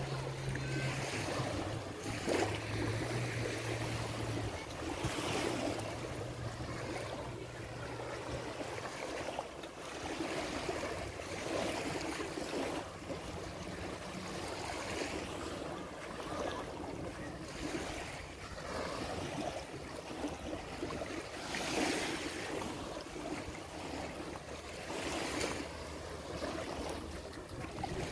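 Small waves of the Adriatic Sea lapping onto a sandy shore: a steady wash that swells softly every second or two.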